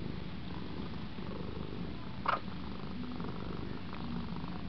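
Domestic cat purring steadily, with one short higher sound a little over two seconds in.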